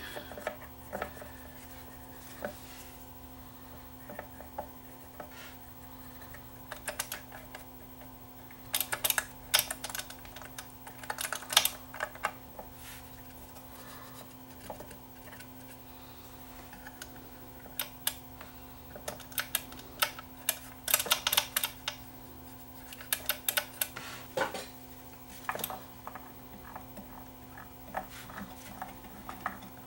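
Small metal levers and parts of a turntable's arm-lift mechanism being handled, giving scattered clusters of light clicks and clatters over a steady low hum.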